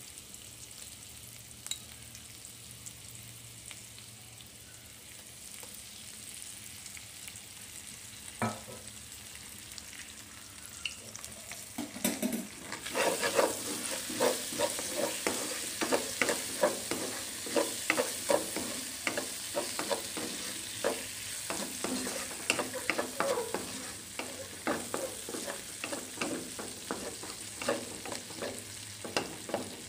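Shallots, ginger, garlic and chili frying in butter in a nonstick wok, a steady sizzle. A little before halfway through, a wooden spatula starts stirring and scraping them, with frequent knocks against the pan over a louder sizzle.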